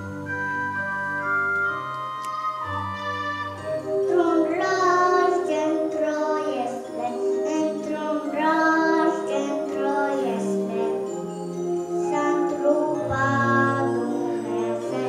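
Keyboard playing sustained chords, joined about four seconds in by voices singing a song over it.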